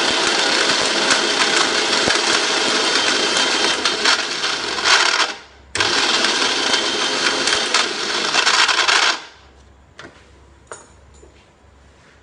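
Electric mixer grinder (mixie) running at full speed, regrinding a dry spice mix with a hard piece of licorice root that is still coarse. It runs in two bursts, stopping briefly about five seconds in, starting again and cutting off about nine seconds in, followed by a couple of light clicks.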